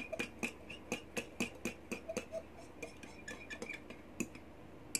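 A utensil tapping and clinking against a small dish while a dipping sauce of chili sauce and mayonnaise is stirred together: quick light clicks about four a second, growing sparser and fainter after about halfway, with a single sharper clink near the end.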